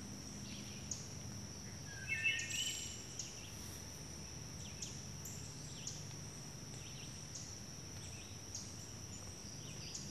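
Outdoor nature ambience: a steady high-pitched insect drone with a short chirp about once a second, and a brief bird call about two seconds in.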